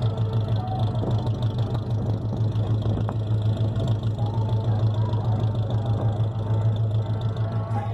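A 1976 Chevrolet Opala's engine idling with a steady, even pulsing rumble.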